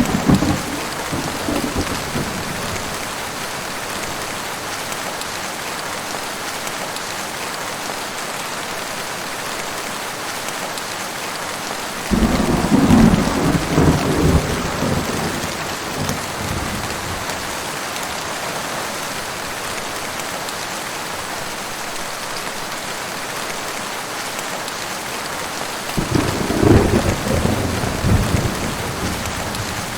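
Heavy rain falling steadily, with three claps of thunder: one right at the start, a longer rumbling one about twelve seconds in, and another near the end.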